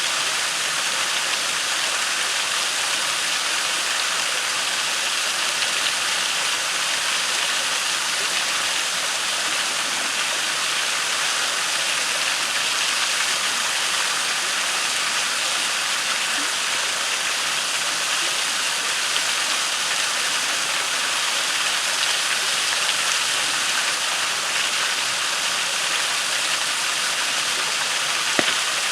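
Waterfall and creek water rushing steadily, with a few brief pops from a crackling campfire, the sharpest one near the end.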